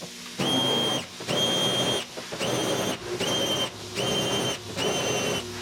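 Welder laying six short stitch welds on car body sheet metal: crackling bursts of about half a second each, starting and stopping abruptly, with a steady high whine in each.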